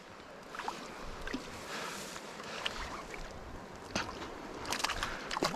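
Small mountain trout stream running over rocks, a steady rush of water, with a few short sharp splashy clicks in the last couple of seconds.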